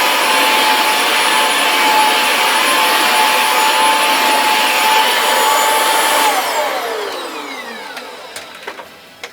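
A vacuum cleaner's motor runs steadily with a high whine. About six seconds in it is switched off, and the whine slides down in pitch as the motor winds down. A few light clicks follow near the end.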